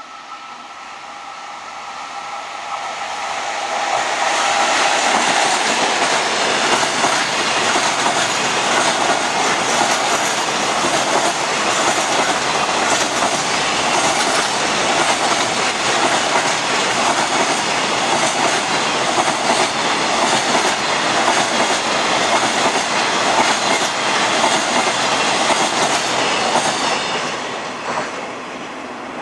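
ED76 electric locomotive passing, followed by a long freight train of container wagons rolling by with a steady clickety-clack of wheels over the rail joints. The rumble builds over the first four seconds, holds steady, and fades near the end as the last wagon goes by.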